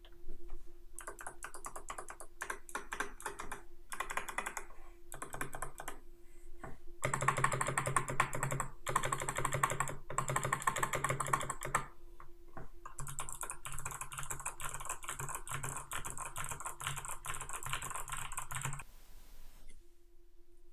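Typing on a GK61X 60% hot-swap mechanical keyboard fitted with clicky Kailh Box White switches. Fast runs of key clicks come in about eight bursts with short pauses between them, and the longest run is near the end.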